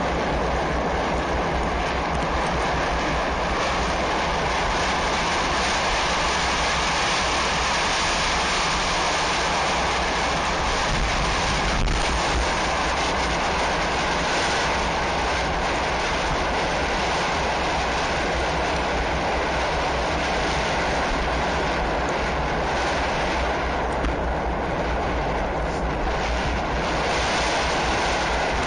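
Steady rushing wind noise on an action camera's microphone while riding.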